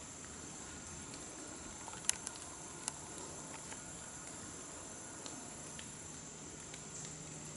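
Steady high-pitched chorus of insects in the woods, with two sharp clicks about two and three seconds in.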